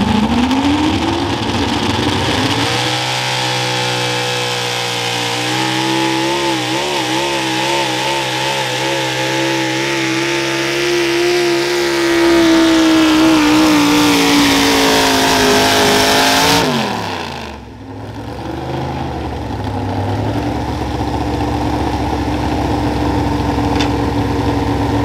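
Super Stock 4x4 pulling truck's engine, in a vintage Ford pickup body, revving up hard at the launch and held at high rpm under load as it drags the sled. The pitch wavers, then grows louder and slowly sags. About two-thirds of the way in the throttle is cut and the revs fall sharply to a lower steady idle.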